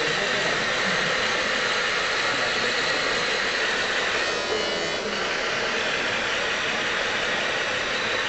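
A radio-controlled scale model vehicle's small motor and gears whirring steadily as it drives, heard close up through its on-board camera, over the general noise of a busy hall.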